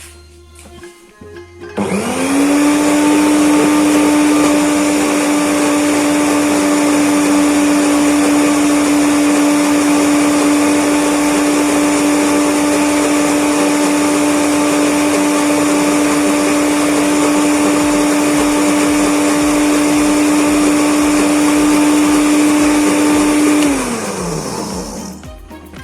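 Electric kitchen blender switched on about two seconds in, its motor rising quickly to speed and then running at a steady, loud pitch as it purées turmeric and shallots in water. Near the end it is switched off and winds down with a falling pitch.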